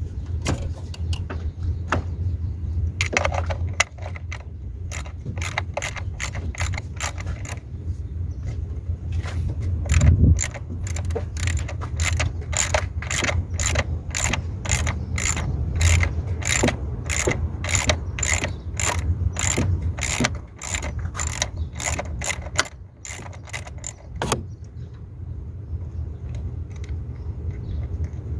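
Hand ratchet wrench clicking as the EGR valve bolts are turned. Scattered clicks at first, then about nine seconds in a steady run of two to three clicks a second that stops a few seconds before the end. A steady low hum lies underneath.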